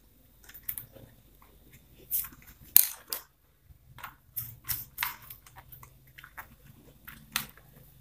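Scattered light clicks and scrapes of hand work on a contactor: a wire pushed into its A2 coil terminal and the terminal screw turned with a screwdriver. The sharpest click comes about three seconds in.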